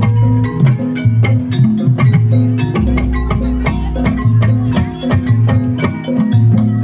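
Javanese gamelan playing gending srampat for jaranan: bronze keyed metallophones (saron, demung) struck in a fast, even pattern, with kendang drumming and low gong tones underneath.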